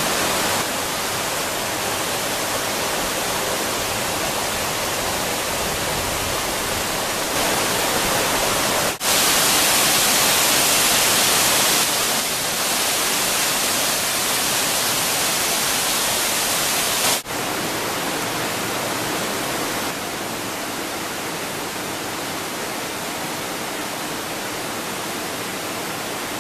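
Waterfalls and cascading water in a narrow gorge, a steady, full rushing hiss. It jumps abruptly in loudness twice, about nine and seventeen seconds in, and is loudest and brightest just after the first jump.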